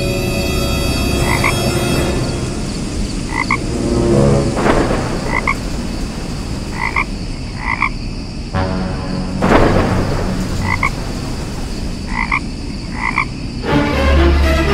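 Frogs croaking: short calls repeating irregularly, one every second or so, over a steady hiss of background noise, with two brief louder noisy swells.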